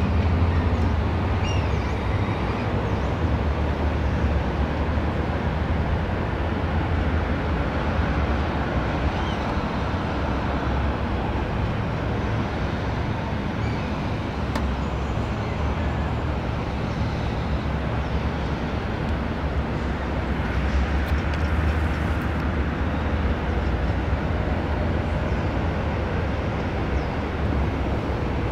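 Steady outdoor background rumble and hiss, strongest in the deep bass, with no distinct events.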